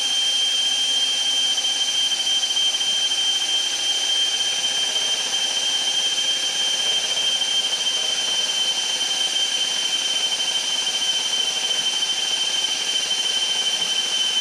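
Electric drill running at a steady speed, spinning the oil pump through a priming rod to prime a 440 big block Mopar's oiling system; a steady high whine.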